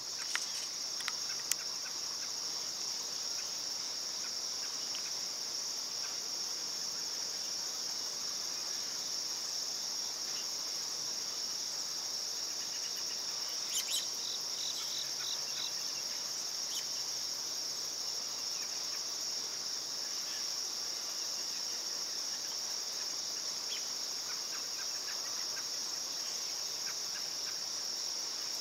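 Insect chorus: a steady, unbroken high-pitched trill. There are a few sharp clicks near the start and a short run of chirps about halfway through.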